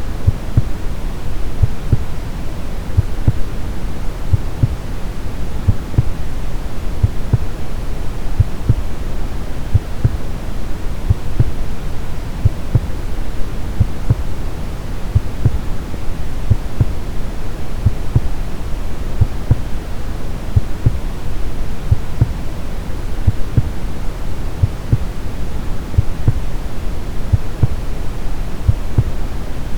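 Brown noise, a steady deep hiss, with a slow, even heartbeat beating low beneath it.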